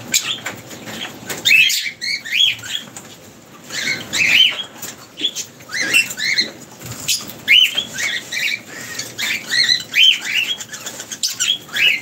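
Lovebirds chattering: a busy run of short, high chirps that rise and fall, many close together and overlapping.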